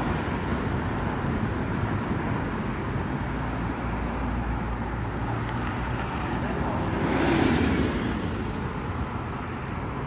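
Steady road traffic rumble, with a car passing close by about seven seconds in, rising and then fading.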